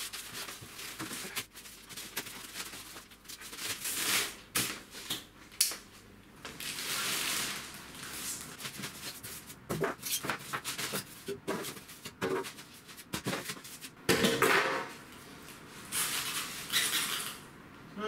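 Plastic packaging being pulled off a new tumble dryer: crinkling and rustling film in several swells, mixed with scattered clicks and knocks.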